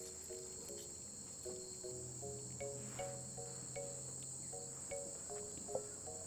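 Crickets chirring in a steady high drone, with quiet background music of short notes in a simple repeating melody, two to three notes a second. There are a few faint clicks.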